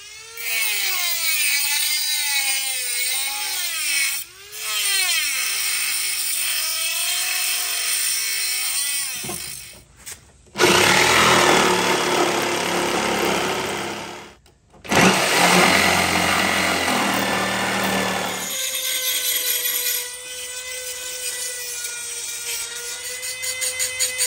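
A handheld rotary tool with a cutoff wheel cuts into an aluminium plate, its motor whine wavering up and down in pitch as it loads. After a short pause, a corded jigsaw cuts the aluminium plate with a loud rasping noise, stopping briefly midway. Near the end a rotary tool whines steadily as it grinds the cut edge.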